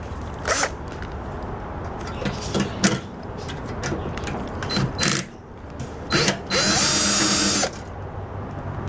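Power drill or driver running in one short burst of about a second near the end, its pitch rising quickly and then holding, while a microwave oven's magnetron is being removed. Several sharp clicks and knocks of the tool and metal parts come before it.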